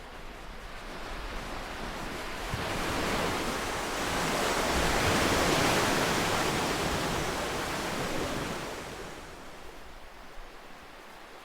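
Ocean surf: one wave surges in, growing to its loudest in the middle, then draws back to a softer hiss.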